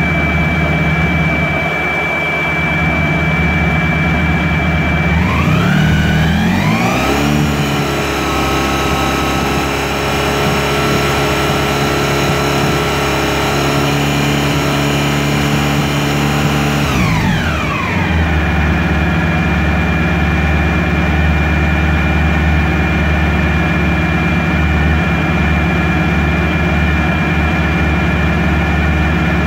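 Honda ST1100's V4 engine idling, then revved up about five seconds in and held at around 4,000 rpm for about ten seconds before dropping back to a steady idle.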